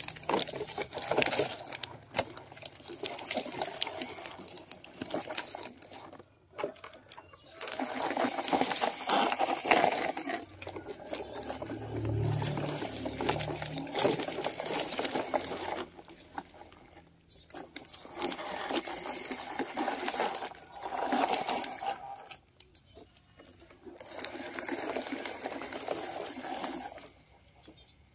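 Plastic toy trucks rolling along a rough mat track, their hard plastic wheels and bodies rattling and crackling. It comes in stretches of several seconds, broken by short quiet pauses.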